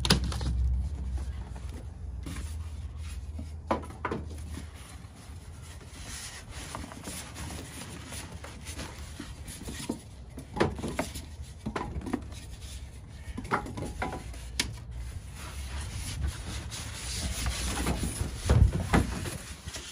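Cardboard box and foam packing inserts rubbing and scraping, with scattered knocks, as speakers are pulled out of the box; the rubbing grows louder near the end.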